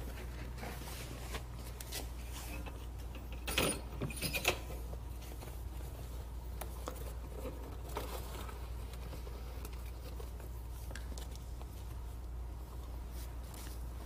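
Faint handling noises, cloth rustling and light plastic clicks, as a kestrel is taken out of a plastic pet carrier, with a short cluster of louder rustles about four seconds in, over a steady low hum.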